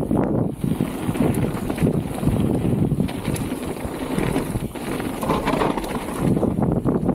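Wind buffeting the microphone as a mountain bike rolls along a trail, a loud uneven rush with scattered clicks and rattles from the bike and the ground.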